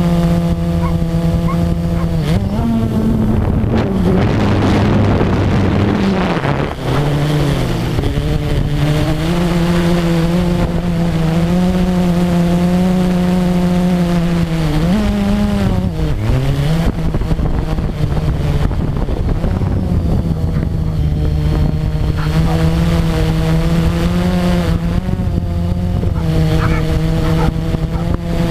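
Blade 350 QX quadcopter's motors and propellers buzzing with a steady hum, heard up close from the GoPro mounted on it. The pitch dips and climbs back several times as the motors change speed while it manoeuvres, with a rush of air noise around four to six seconds in.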